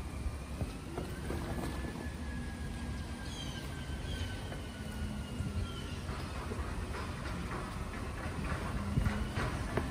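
Garbage truck running: a steady low engine rumble with a thin high whine that rises slightly, then slowly sinks in pitch. Scattered short knocks, including footsteps, come mostly in the second half.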